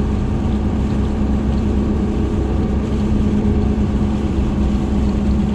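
Truck's tires humming loudly at cruising speed, a steady drone heard from inside the cab over the low engine and road rumble. The hum is made louder by a bad wheel alignment.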